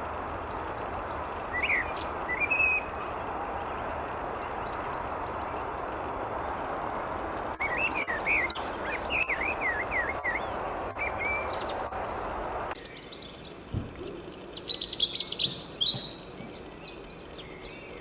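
Common blackbird singing short, low, warbling song phrases over a steady background hiss. About two-thirds through, the background drops away and a higher, rapid twittering song phrase follows, typical of a European robin.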